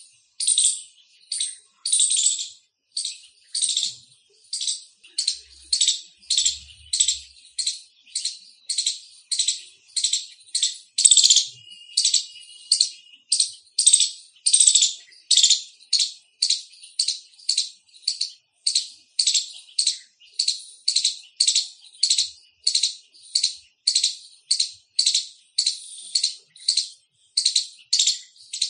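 Indian palm squirrel giving its loud chirping call: short, sharp, high chirps repeated steadily, about two a second.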